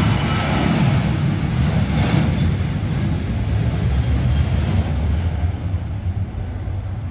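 Jet engines of a Boeing 737 on the runway, a loud steady rumble with a hiss that is strongest in the first couple of seconds and thins out as the aircraft moves away.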